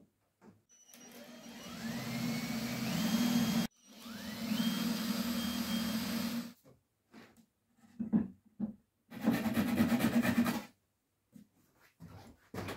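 A small electric power tool run twice for a few seconds at a time. Each time its motor whine rises in pitch as it spins up, then holds steady, then cuts off sharply. A shorter burst of similar noise and a few scattered knocks follow.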